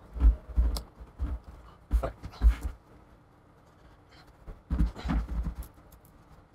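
Handling noise as an iMac's display panel is pried loose from its adhesive with a plastic tool: irregular low bumps and short scraping sounds, with a quiet pause midway and a cluster of bumps near the end.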